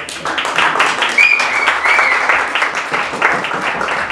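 Audience applauding, a dense run of claps after a speaker's closing line, with a few short high calls rising over it about a second in.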